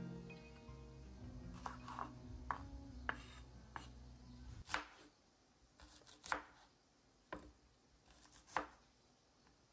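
Chef's knife chopping green bell pepper and then red onion on a wooden cutting board: about ten separate crisp knocks, roughly a second apart. Soft background music fades out in the first half.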